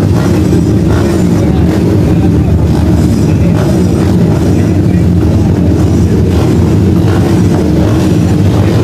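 Many motocross dirt-bike engines running together, a loud steady drone with no pauses.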